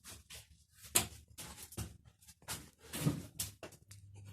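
A few irregular clicks, knocks and rustles in a small room, the sharpest about a second in.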